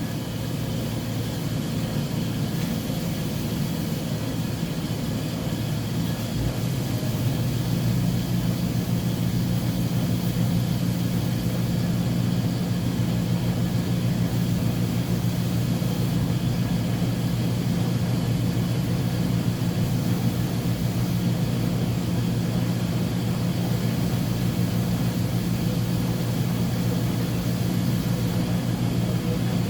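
Uni-Mac UniMat 35 commercial washing machine running with a steady low hum, which grows louder about seven seconds in and then holds.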